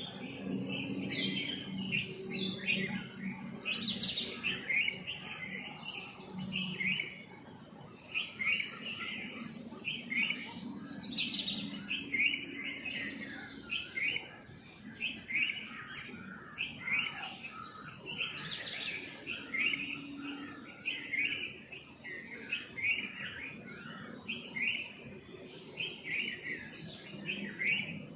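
A chorus of small birds chirping: many short, rapid chirps overlapping without a break, with a louder, higher call standing out about every seven to eight seconds.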